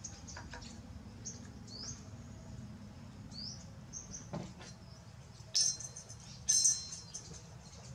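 Baby macaque giving short, high rising chirps while eating, then two louder high squeals a little past halfway, about a second apart.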